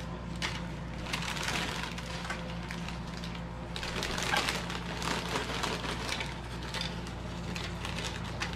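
Crinkling of a Doritos bag as handfuls of tortilla chips are pulled out, with light clatter as the chips are dropped onto a plate. The crackling comes in irregular bursts.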